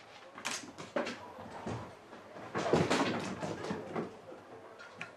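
A string of irregular knocks and scuffling thumps on a hard floor, loudest in a cluster in the middle of the stretch.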